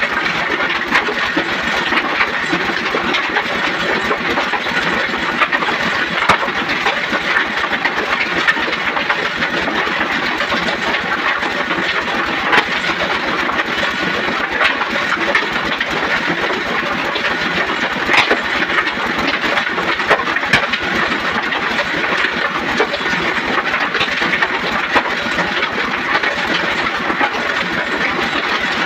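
An engine running steadily: a constant, even din with a gritty rattle and scattered faint clicks.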